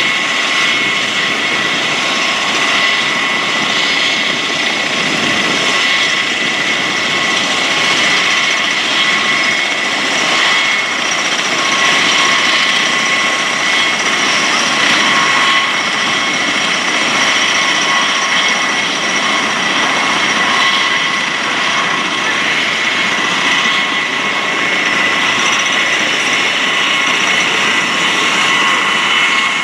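V-22 Osprey's turboshaft engines running steadily close by: a continuous rushing noise with a steady high whine on top, at an even level throughout.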